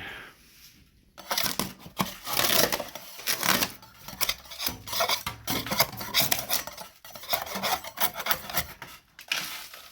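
Repeated irregular scraping and rasping strokes of a hand tool on a hard surface, with some light clattering.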